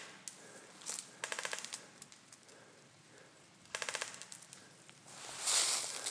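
Airsoft rifle firing two short full-auto bursts of rapid clicks, about a second in and about four seconds in. A loud rustling noise follows near the end.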